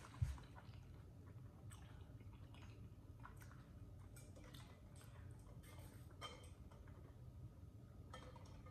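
Faint, scattered wet mouth clicks and smacks of a person chewing food close to the microphone. A single soft low thump comes about a quarter-second in.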